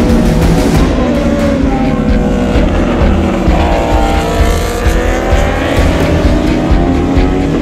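Several 1000 cc superbike engines at racing speed as a pack of bikes passes, revving high and sliding up and down in pitch.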